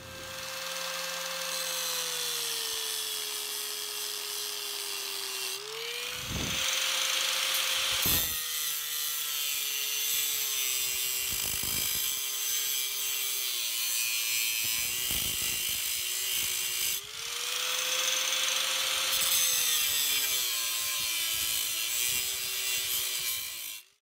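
Angle grinder with a cutoff wheel cutting through a hardened steel axe head, a steady motor whine over a harsh grinding hiss. The motor's pitch sags as the wheel bites into the steel and climbs back twice when the pressure eases, and the sound cuts off suddenly at the end.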